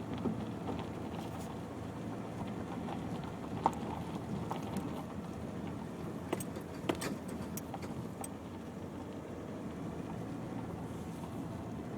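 Cabin noise of a Nissan X-Trail driving slowly along a rough unsurfaced lane: a steady low rumble from the engine and tyres. Sharp knocks and rattles come as it bumps over the ground, the loudest about four seconds in and again around seven seconds.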